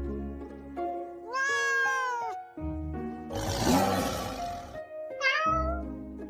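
A cat meows twice over background music: one long meow that rises and falls in pitch, then a shorter one that falls. Between the two comes a loud rushing burst of noise.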